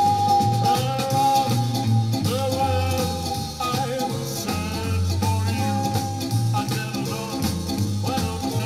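1963 pop-rock record playing from a vinyl single on a turntable, with a steady bass beat under a wavering melody line.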